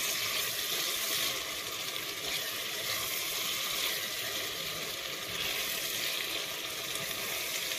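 Chopped vegetables (tomatoes, peppers, carrots and onion) sizzling steadily in a stainless steel pot on a gas burner as they are stirred with a spoon.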